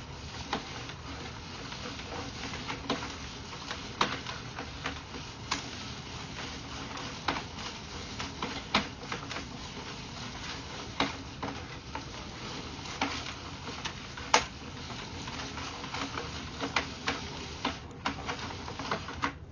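Sewer inspection camera and its push cable being fed through a cleanout into the sewer line: irregular sharp clicks and taps, about one every second, over a steady rushing noise.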